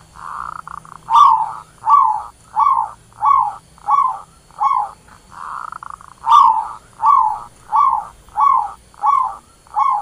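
Zebra dove singing its cooing song: a soft rolling coo, then a run of six short cooing notes, each dropping in pitch, about 0.7 s apart. The whole phrase comes twice.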